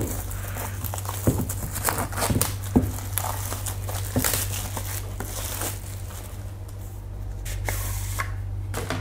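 Cardboard box and paper wrapping of an Apple Magic Keyboard being torn open and rustled by hand, with scattered short clicks and scrapes as the keyboard is slid out of its sleeve. A steady low hum sits underneath.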